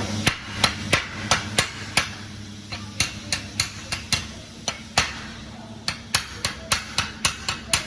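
Hammer tapping lightly and repeatedly on the back of tack-welded steel plates, about three strikes a second, pre-setting the joint before the root pass is welded.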